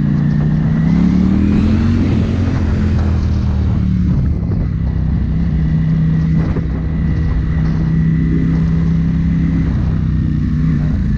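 Ducati Panigale V4 S superbike's V4 engine under way, rising in pitch as it accelerates over the first couple of seconds, then holding steady revs while cruising, with a change in revs near the end.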